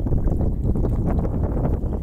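Steady wind buffeting the microphone over sea water sloshing and slapping against the side of a small boat.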